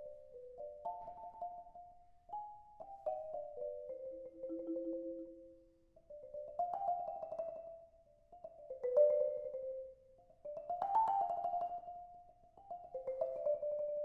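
Marimba played with two mallets: a slow melody in short phrases, each swelling and then fading away, with notes held by quick repeated strokes. About halfway through, the music dips almost to nothing between phrases, then swells again.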